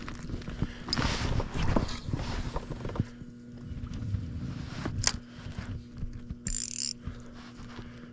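Irregular knocks and rattles of gear on a fishing kayak, over a steady low hum, with one short hiss about six and a half seconds in.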